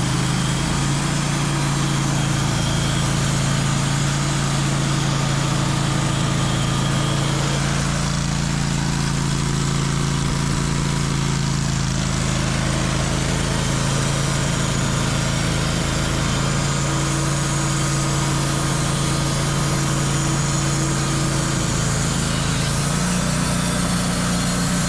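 An engine running at a steady speed, its pitch stepping up slightly near the end.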